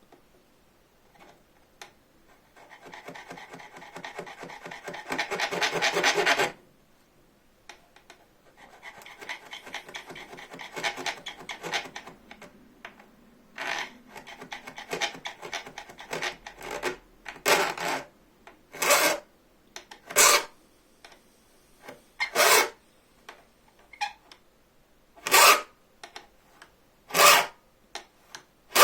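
Hand file rasping across a bow-saw blade, cutting the teeth. First come two runs of quick, short strokes, then single strokes about every second or two.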